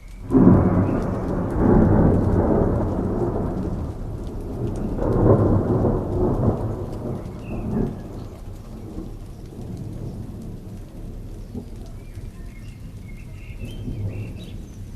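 Steady rain with thunder rolling. A loud rumble starts about half a second in, and a second swell comes around five seconds. The thunder dies away by about eight seconds, leaving the rain on its own.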